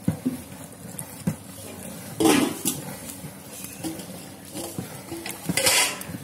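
A long-handled ladle stirring a large aluminium cooking pot of boiling food over a wood fire: clinks and sloshing, with two louder bursts, one about two seconds in and one near the end.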